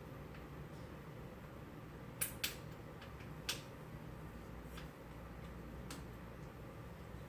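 A few sharp clicks, two close together about two seconds in and a third about a second later, with fainter ticks after, over a low steady hum.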